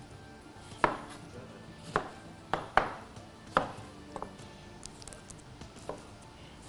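Knife slicing a lemon on a plastic cutting board: irregular sharp knocks, seven or so, as the blade strikes the board with each cut.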